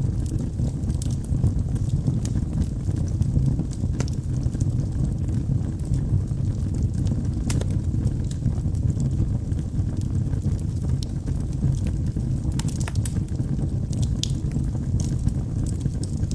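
Wood logs burning in a fireplace: a steady low rumble of the flames with scattered sharp crackles and pops, more of them close together near the end.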